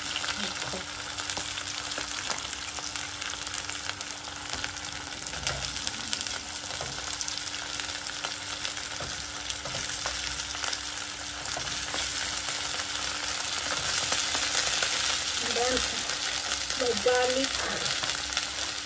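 Chopped onions and cubed potatoes frying in hot oil in a karai: a steady crackling sizzle that grows somewhat louder in the latter part.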